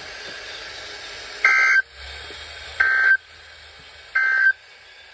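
Three short, buzzy two-tone digital data bursts from an Emergency Alert System SAME signal, each under half a second and a little over a second apart. Short bursts in a group of three, just after the spoken alert ends, are the end-of-message code that closes the tornado warning.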